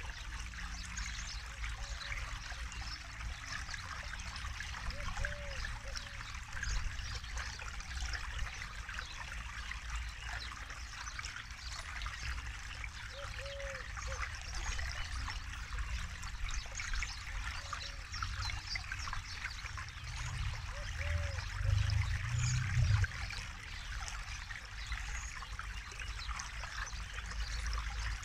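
River water flowing and trickling steadily over stones, with a low rumble that swells briefly about three quarters of the way through. A faint short low call repeats four times, several seconds apart.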